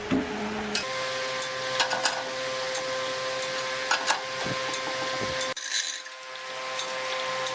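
Electric motor of a woodworking power tool running with a steady whine, with scattered clicks and scrapes of tool work on wood; the sound changes abruptly a little over halfway through.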